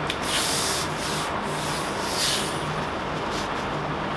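A sheet of corrugated cardboard rubbing and scraping as it is slid and shifted by hand, with a louder scrape of about half a second near the start and a shorter one about halfway through.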